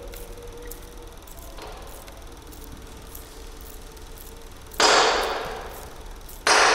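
Two loud sharp bangs about a second and a half apart, the second near the end, each ringing away slowly in the echo of a large empty hall.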